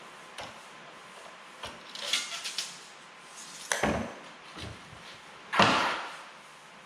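Steel pieces being handled and positioned at a chop saw: a series of separate knocks and clatters, the loudest about two-thirds of the way through.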